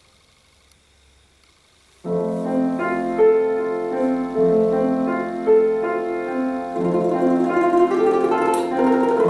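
A pause of about two seconds, then a piano comes in playing sustained chords and a melody, the accompaniment to a slow romance for domra.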